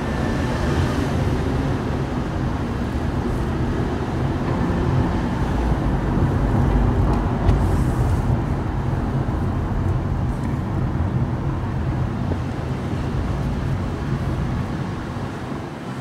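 Car interior noise while driving slowly: a steady low rumble of engine and tyres heard from inside the cabin, with one short knock about halfway through.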